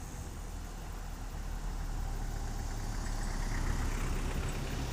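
A motor vehicle's engine running, growing steadily louder as it approaches along the road.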